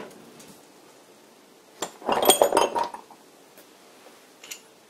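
Small steel lathe tools clinking and rattling against each other as they are handled in a wooden tool drawer: a short cluster of clinks about two seconds in, then a single light tick near the end.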